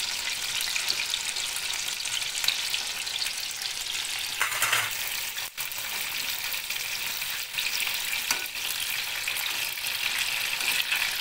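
Marinated chicken pieces frying in hot oil in a steel kadai, a steady sizzle, with a few short scrapes of a perforated slotted spoon against the pan as the pieces are turned.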